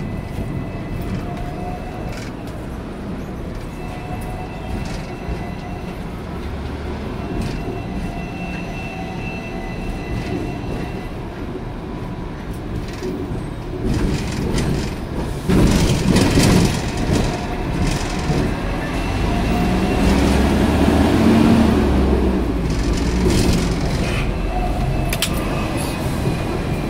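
Hong Kong double-decker electric tram running, heard from inside: a steady rumble of steel wheels on the rails with a faint whine. About halfway through it grows louder and rougher, with rattling clatter over the track.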